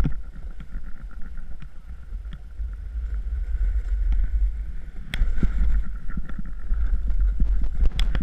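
Wind buffeting the microphone of a camera carried by a snowboarder riding down a ski run, with the board sliding and scraping over the snow. Sharp clicks or knocks come near the start, about five seconds in and near the end.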